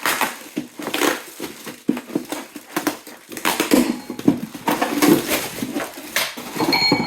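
Box packaging being rummaged through and crunched as parts are pulled out, with irregular rustles, crinkles and light knocks and a brief squeak near the end.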